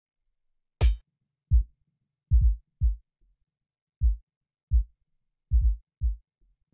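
Electronic drum loop reduced to its kick drum by a soloed low band in a multiband stereo-width plugin: about nine deep, short thumps, each falling quickly in pitch, in an uneven beat pattern. The first hit, about a second in, still carries a bright top.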